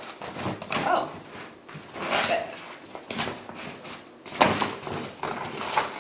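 Thick, stiff banner material rustling and crinkling in irregular handfuls as it is pressed and tucked around the edge of a table.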